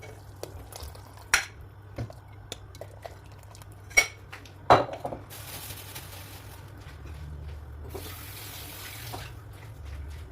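Dishes and utensils clinking three times against each other, then water running from a tap into a sink in two stretches.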